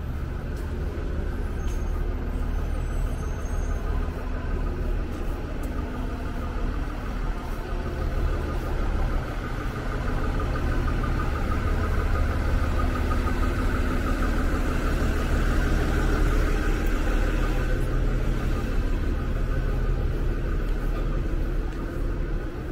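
City transit bus idling at the curb: a steady low engine drone with a whirring fan-like band above it, louder through the middle stretch, over general street traffic.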